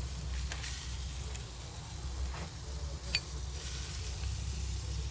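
Shrimp sizzling on a hot grill, a steady hiss, with one sharp click about three seconds in.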